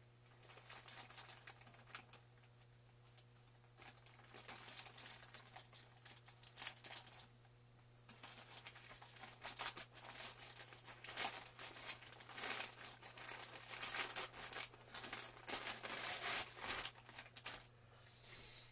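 Plastic mailer bag crinkling and tearing as it is worked open by hand, in irregular rustles that get busier about halfway through. A steady low hum runs underneath.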